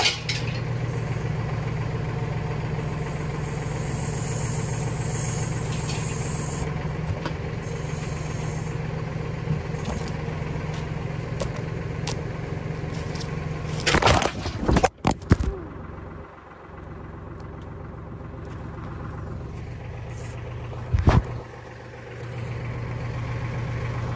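An engine idling steadily at low revs, with a cluster of loud knocks about fourteen seconds in and another single knock about twenty-one seconds in.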